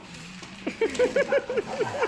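A person laughing in quick, even bursts, starting a little under a second in.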